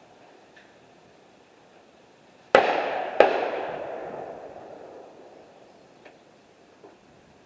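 Two loud rifle shots about two-thirds of a second apart, about two and a half seconds in. The second is as loud as the first, and a long echo fades over a couple of seconds. Two faint clicks follow near the end.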